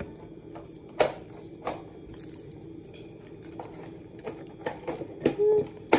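Scattered knocks and taps as a rolled tube is handled and rolled on a granite countertop, a few sharp ones spaced out, then a quick cluster near the end, over a steady faint hum.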